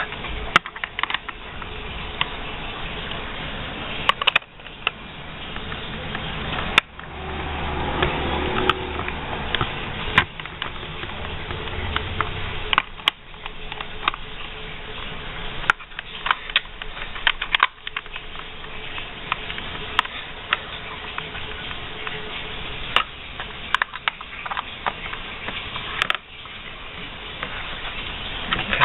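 Irregular metallic clicks and taps of a hex wrench and a second wrench working a bolt and nut on a bicycle fender bracket as the bolt is tightened, over a steady background noise.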